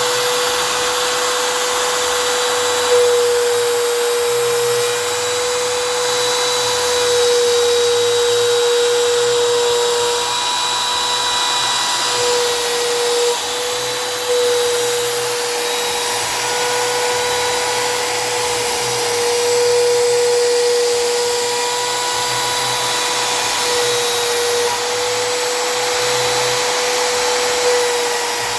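CNC router spindle running and cutting PVC: a steady high whine over a wide hiss, dipping briefly a few times as it works.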